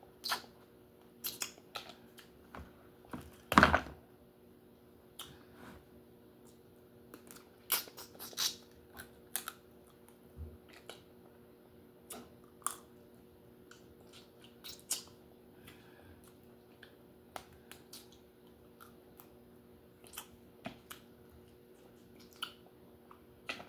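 Irregular sharp cracks and clicks of a whole lobster being broken open and eaten, with one loud crack about three and a half seconds in.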